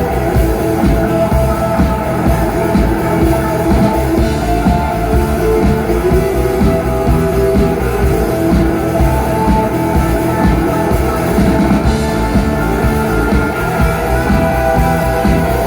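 Instrumental stretch of a rock song, with electric guitar over a drum kit keeping a steady beat.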